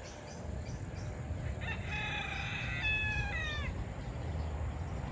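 A rooster crowing once, a call of about two seconds that is held and then drops in pitch at the end, over a low steady rumble.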